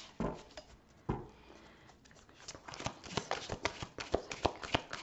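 An oracle card deck being shuffled by hand: a soft knock about a second in, then a quick, uneven run of card clicks through the second half.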